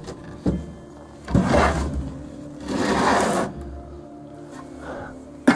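An old cabinet being worked open by hand: a knock, two stretches of scraping and rustling, and a sharp clack near the end.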